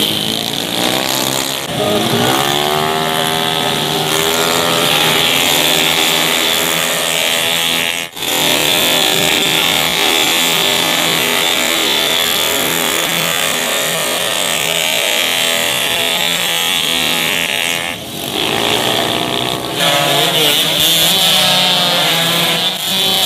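Small underbone racing motorcycles passing at full throttle, several engines at once rising and falling in pitch as they go by. The sound breaks off abruptly twice, about 8 and 18 seconds in.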